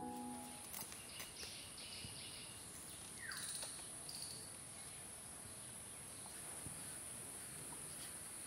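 Outdoor ambience: a steady high insect drone, with a couple of short bird chirps about three to four seconds in, one of them falling in pitch. A few faint clicks and scrapes of hand work on vegetables sound underneath.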